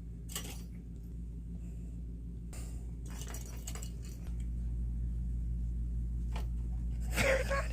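Steady low hum with a few brief rustling and clinking noises, the last and densest near the end.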